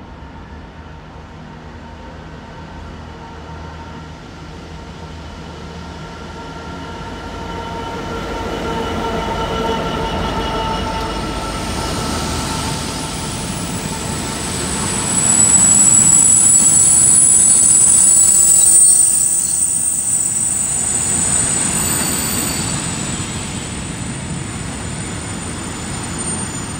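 A heavy freight train hauled by a Class 66 diesel locomotive rolls through, growing louder as it passes. Long high-pitched squealing from the running gear swells to its loudest, a piercing squeal, about halfway through, then eases as the wagons go by.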